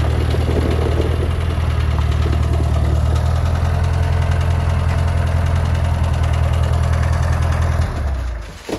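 Farm tractor's diesel engine idling steadily with a low, even drone, fading out near the end.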